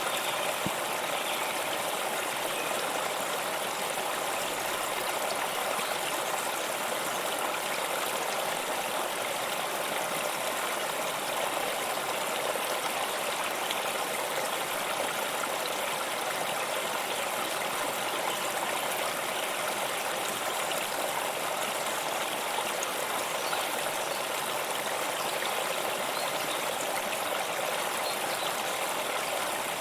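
Waterfall: falling water rushing and splashing in a steady, unchanging hiss.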